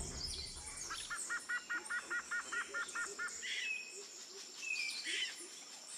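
Jungle ambience of birds calling: starting about a second in, one bird gives a rapid series of about ten repeated double notes, about five a second, among scattered chirps and whistles, over a steady high-pitched hum.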